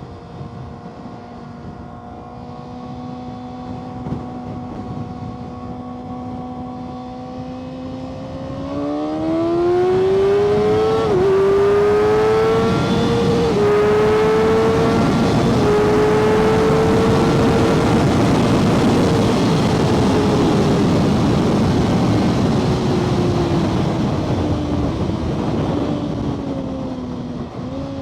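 Kawasaki ZX-6R 636 inline-four engine cruising steadily, then opened up about nine seconds in: revs climb fast with two quick upshifts, hold high under a loud rush of wind, then ease off near the end. The shifts are clean, with the clutch no longer slipping after the cable adjustment.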